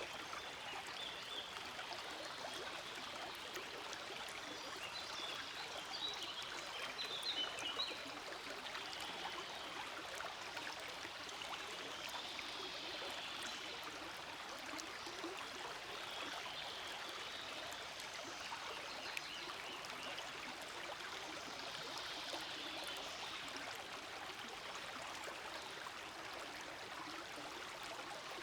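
Small forest stream flowing steadily over stones, a continuous rushing babble that swells a little about six to eight seconds in.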